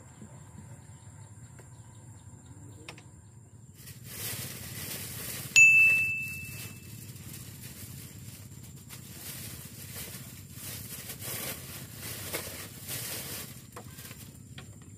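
A single sharp metallic ding that rings on for about a second, over several seconds of rushing, hissy noise.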